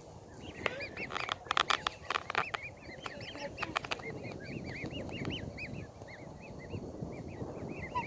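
Black swan cygnets peeping: a continuous run of short rising-and-falling chirps, several a second. There are sharp clicks in the first half.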